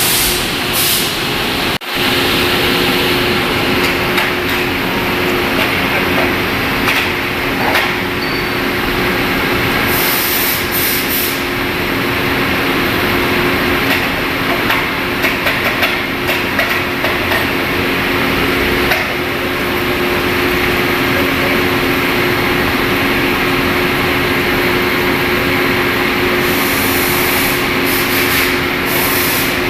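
Large lathe running a trepanning cut: steady machine noise with two low steady hums, scattered knocks and bursts of hiss. The sound drops out briefly about two seconds in, then carries on.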